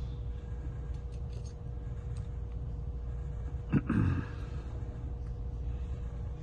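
Faint clicks and one sharper knock, a little under four seconds in, from small parts and tools being handled on a phone under repair, over a steady low electrical hum.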